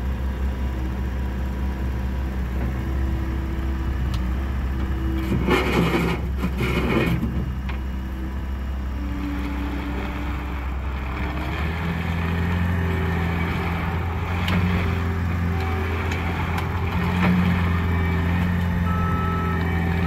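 Bobcat T66 compact track loader's 2.4-litre four-cylinder turbo diesel running steadily, with a hydraulic whine, as the machine works its bucket and turns on its tracks. A brief burst of noise comes about six seconds in, and from about twelve seconds the engine note grows fuller as the loader drives and turns.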